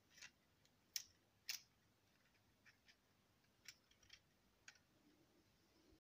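Small, sharp clicks of 3D-printed PLA paddle-wheel parts being handled and fitted together, about eight of them at uneven spacing, the loudest about a second and a second and a half in.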